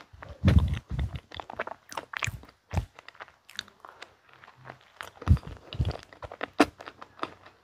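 Close-miked eating sounds: a bite into a soft mint-frosted pastry and the chewing that follows, made up of many short wet clicks with a few louder low thuds.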